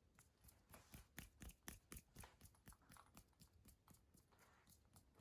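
Near silence with a run of faint, quick clicks or ticks, about three or four a second.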